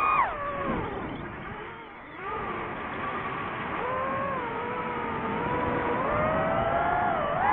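DJI FPV drone's motors and propellers whining. Shortly after the start the pitch falls sharply as the throttle is cut, the sound is at its quietest about two seconds in, then the whine returns, wavering up and down, and rises again near the end.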